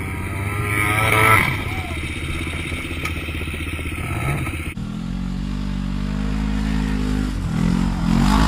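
Off-road vehicle engines running, loudest about a second in. After a sudden change about five seconds in, a side-by-side UTV's engine runs steadily, its pitch rising and falling near the end.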